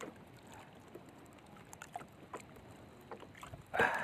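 Water lapping against a small outrigger boat, with faint ticks of nylon fishing line being worked by hand. A brief louder noise comes near the end.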